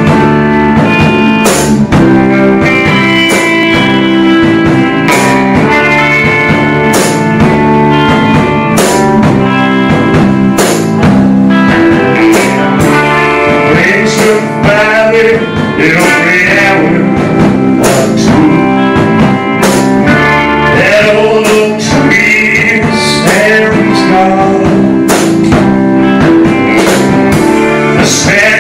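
Small rock band playing live and loud: electric guitar and drum kit keeping a steady beat, with a man singing into a microphone in parts.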